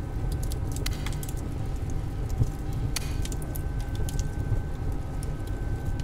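Mixed old-bakery ambience of boiling water and oven fire: a steady low rumble under a faint steady hum, with light metallic clinks about a second in and again about three seconds in.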